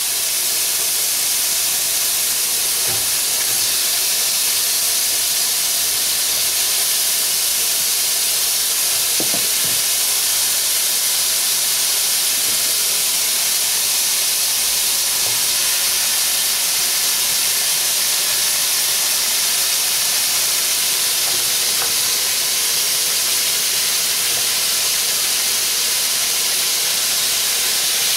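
Chicken wings coated in brown sugar and soy sauce sizzling steadily in a dry pan with no oil as they brown.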